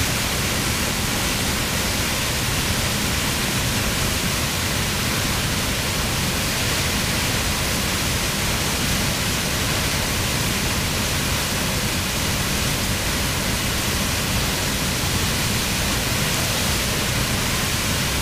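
Wide river waterfall pouring over a rock ledge into whitewater: a steady, unbroken rush of falling water.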